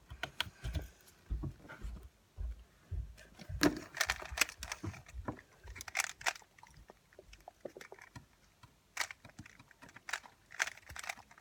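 Rubik's Cube being turned fast in the hands: irregular plastic clicking and clacking of the layers, easing off for a couple of seconds past the middle and picking up again near the end.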